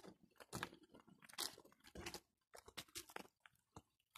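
Faint, irregular crunching and rustling of footsteps on dry grass, bark and leaf litter.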